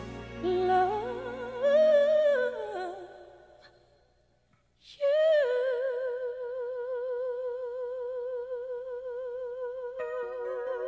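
Music: a wordless vocal phrase that fades away about four seconds in, then after a short gap a single long note held with a wide vibrato.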